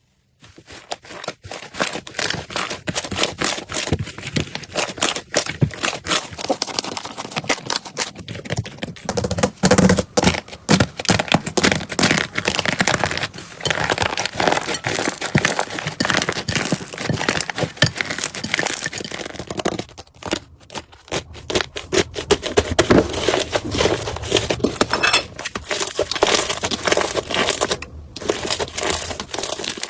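Slime being squeezed and pressed by hand: a dense run of crackling, crinkly pops and squishes, with a couple of brief pauses.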